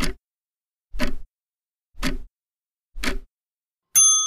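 Countdown timer sound effect: a clock ticking once a second, four ticks, then a bright bell ding about four seconds in that rings on and fades away, marking time up for the answer.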